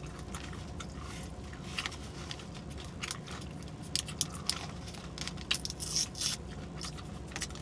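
Close-up mouth sounds of someone chewing a breakfast burrito with open-mouthed smacking: irregular wet clicks and smacks, more of them in the second half.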